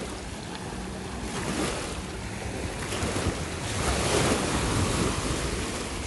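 Small river waves washing onto the shore, with wind buffeting the microphone. The wash swells louder in the second half.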